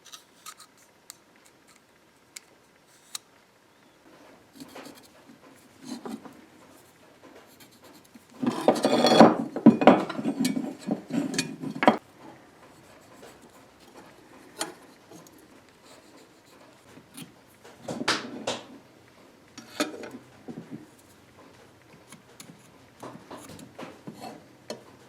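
Small screws being driven by hand into a jigsaw's base, with clicks and clinks of small metal parts and a longer rasping stretch of screw-turning from about 8 to 12 seconds in.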